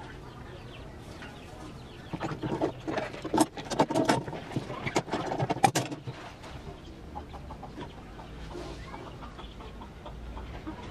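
Chickens clucking in a busy burst of short, irregular calls from about two to six seconds in, then only a faint steady background.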